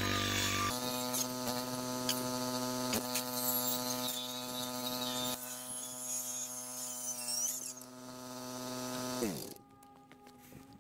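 Corded circular saw running with a steady whine as it cuts along wooden floor planks. About nine seconds in the saw is switched off and its whine falls away as the blade spins down.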